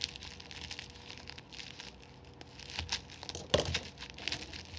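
Plastic bubble mailer crinkling and tearing as it is slit with a box cutter and pulled open by hand, with a louder crackle about three and a half seconds in.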